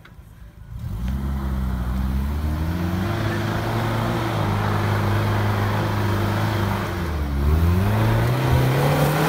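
SUV engine working under load as the truck crawls up a rocky dirt trail. The engine comes in about a second in and rises in pitch, holds steady, then dips briefly near the end and climbs again as the throttle changes.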